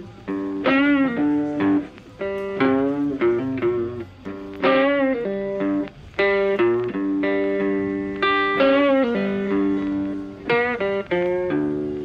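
Background instrumental music led by a guitar playing a melody with bent, wavering notes.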